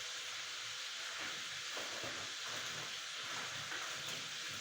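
Chicken drumsticks frying in hot oil, a steady sizzle.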